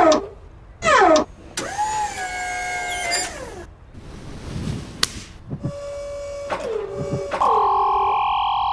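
A string of dubbed cartoon sound effects: two quick falling whistle-like glides, a long whine that bends and then slides down, a sharp click, and more tones that drop in pitch. Near the end comes a loud, steady buzzer-like chord.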